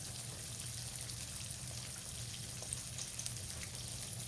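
Flour-dredged turkey cutlets frying in a skillet of hot oil: a steady sizzle with scattered small crackles.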